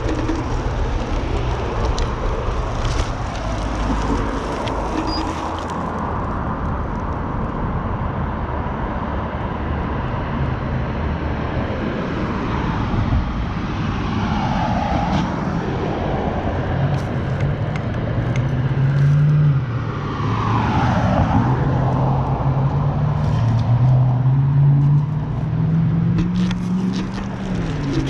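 Riding noise from a Dualtron Compact electric scooter in the rain: a steady rush of wind and tyres on wet road. In the second half a low hum rises and falls in pitch, and passing traffic sweeps by twice.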